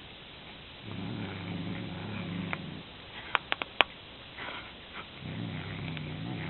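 A low, drawn-out animal call, heard twice for about two seconds each time, with a few sharp clicks between the two.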